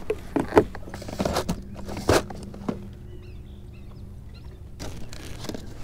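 Clicks and knocks of a bass boat's deck storage hatch and a clear plastic tackle box being opened and handled. The loudest knocks come a little over half a second and about two seconds in, with a steady low hum underneath.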